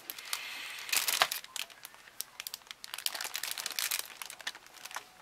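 Clear plastic bag crinkling and crackling as the plastic model kit runners sealed inside it are handled. The crackles come in irregular bursts, loudest about a second in.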